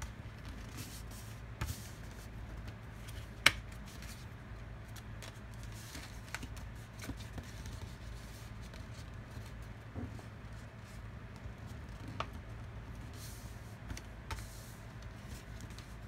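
Sheet of paper being folded and creased into a paper airplane's wings, with soft rustles and scattered light taps against the table. One sharp click about three and a half seconds in, over a low steady hum.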